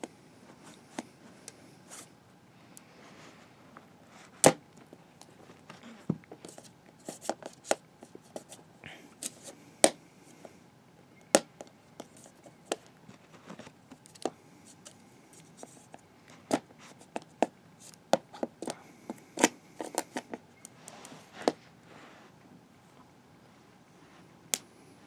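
Scissors snipping through plastic shrink-wrap on a DVD case while hands crinkle and peel it: an irregular run of sharp crackles and clicks with short rustles between.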